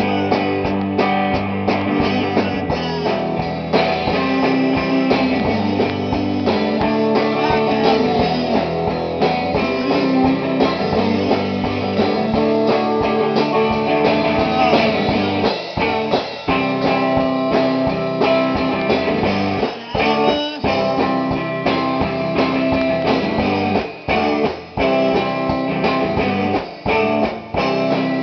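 Rock band playing in rehearsal: strummed electric guitars over bass and drums, with a few brief stops in the playing in the second half.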